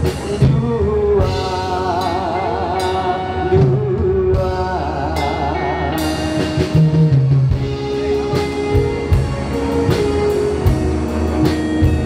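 A band playing the opening of a Hokkien pop song, with a drum kit keeping a steady beat and a lead melody with vibrato over the accompaniment.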